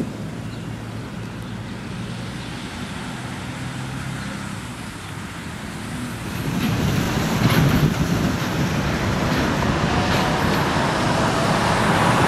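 Street traffic noise from passing road vehicles, growing louder about six seconds in.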